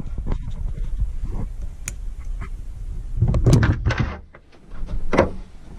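Hard plastic parts of a caravan basin's shower and tap fitting being handled and worked apart by hand: scattered small clicks and knocks, a louder scraping rattle about three and a half seconds in, and a sharp knock about five seconds in.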